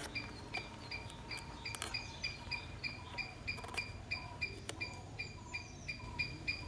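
Thin wire being worked through holes in a dry coconut husk, giving scattered clicks and creaks. Under it runs a steady high chirping, about three chirps a second.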